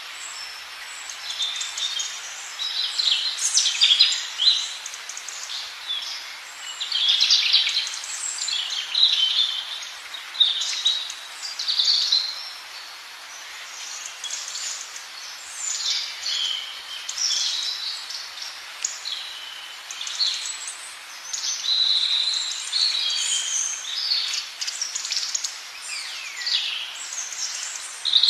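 Baby birds chirping: a busy run of short, high-pitched calls that comes in bouts with brief lulls, over a faint steady hiss.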